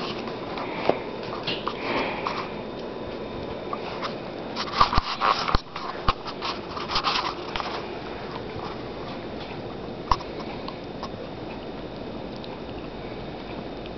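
Two small dogs playing on a bed, sniffing and mouthing at each other, with a flurry of bumps and rustling on the bedding about five seconds in and a single sharp knock near ten seconds.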